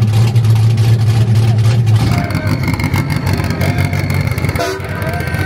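A car's engine running loud and steady at low pitch, then dropping away about two seconds in as the car moves off.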